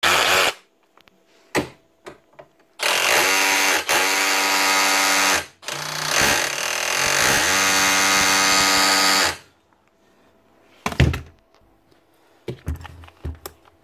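Milwaukee M12 CH cordless SDS hammer drill running free in two bursts of about three seconds, its motor spinning up each time, with a steady whirr and no hammering blows. It makes noise but doesn't kick: the dried-up grease has let the piston run dry. A knock comes later, when the drill is set down.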